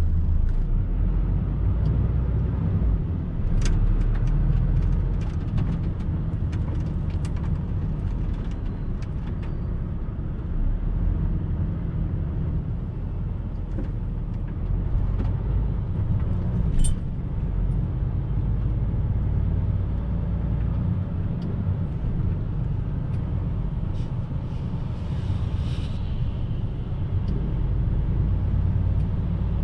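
Heavy truck running on the road: a steady low engine and road rumble with scattered rattles and clicks, and a brief hiss about three-quarters of the way through.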